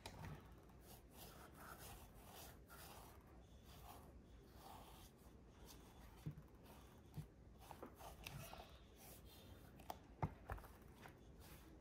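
Faint rubbing of a cotton ball, wet with alcohol, wiped over a patent leather flat to lift off the excess dye, with a few light knocks as the shoe is handled.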